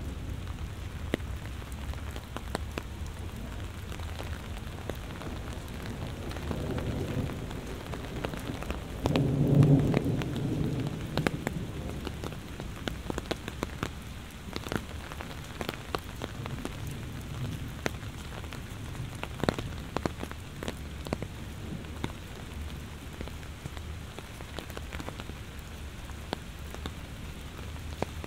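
Heavy rain falling steadily, with many close, sharp drop impacts. A roll of thunder rumbles in about six seconds in, is loudest a few seconds later and fades out.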